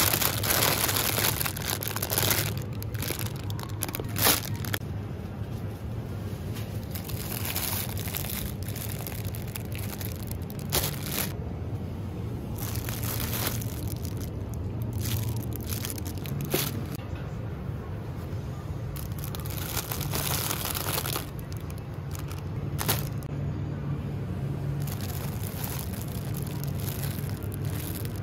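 Crinkling and rustling of handled packaging, a string of short crackles, over soft background music.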